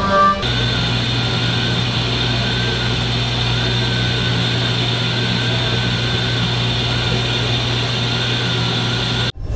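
A CNC milling machine running steadily: a constant low hum under a high, slightly wavering whine. The sound cuts off abruptly near the end.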